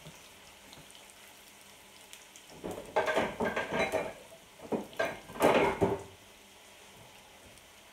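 Raw potato chunks sizzling quietly in olive oil in a frying pan. A few seconds of irregular clattering of pans, dishes and utensils come in the middle.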